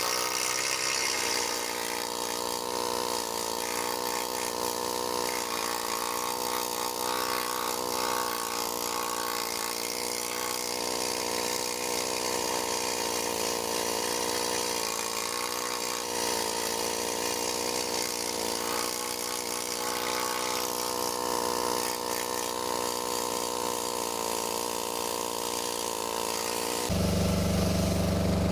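Pneumatic needle gun running, a fast steady buzzing hammer of its needles on the steel chassis to strip rust and paint, wavering a little as it is worked along. Near the end a deeper steady hum takes over.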